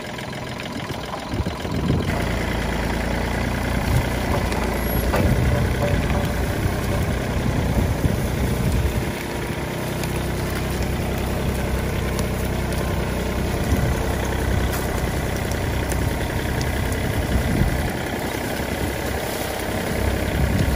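Kubota L3408DI tractor's direct-injection diesel engine running steadily under load while it drags a cassava digger blade through the soil. It grows a little louder about two seconds in.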